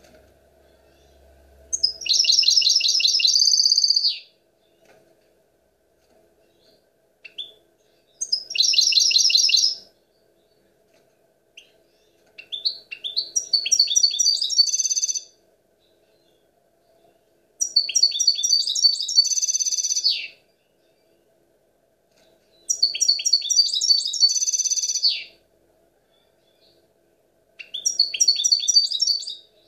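European goldfinch song: six bursts of fast, trilled twittering, each about two seconds long, with pauses of a few seconds between them.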